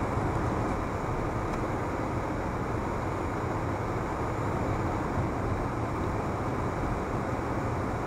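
Steady in-cabin driving noise of a car cruising on a highway: tyre and engine hum, picked up by a dashcam's microphone.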